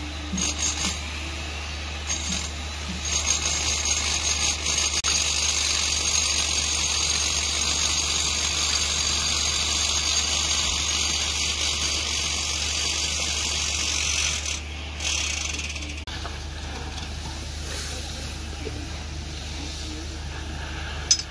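Construction-site noise: a machine running steadily with a low hum and a bright hiss over it. The sound changes abruptly about 16 seconds in to a quieter steady rumble.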